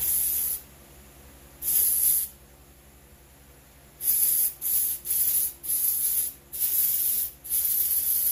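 Aerosol spray can hissing in short spurts: two separate spurts, then a quick run of six, roughly one every second or less.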